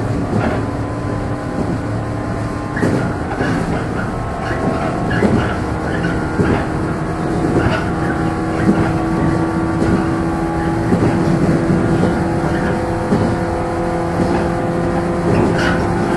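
Running noise heard inside the motor car of a JR 115-series electric train: the DC traction motors hum with steady tones while the wheels knock over rail joints again and again.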